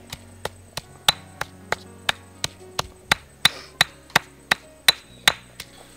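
Stone pestle pounding garlic in a stone mortar: sharp stone-on-stone knocks about three times a second, stopping just before the end.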